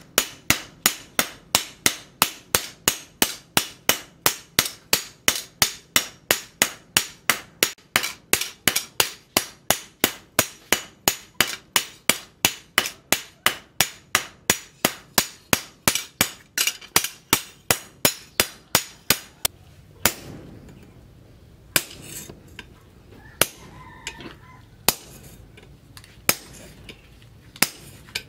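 Hand hammer and sledgehammer forging a leaf-spring steel cleaver blank on a steel anvil post: hot-metal hammer blows in a fast, even rhythm of about three strikes a second. About twenty seconds in the rhythm stops, and a few single, spaced blows follow.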